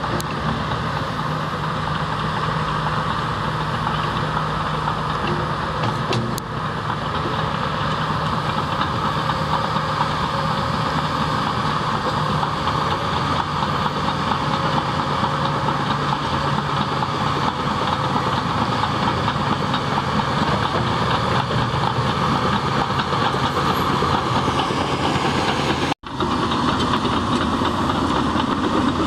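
Caterpillar D6T crawler bulldozer's diesel engine running steadily as the machine works, with a brief cut-out about 26 seconds in.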